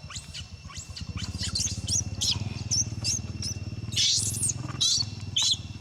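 Young monkey crying in a rapid string of short, high-pitched squealing calls, several a second, loudest about four seconds in. A steady low hum runs underneath.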